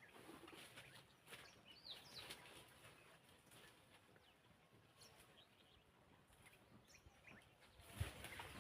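Faint outdoor ambience with a few scattered bird chirps and small clicks and rustles, and a low thump near the end.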